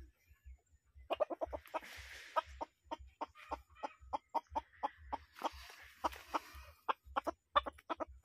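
Rooster clucking in a rapid run of short, repeated calls, several a second, starting about a second in. Two spells of rustling come in among the clucks.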